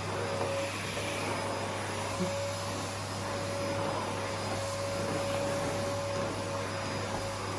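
Vacuum cleaner running steadily, a constant motor whine over a rushing air noise.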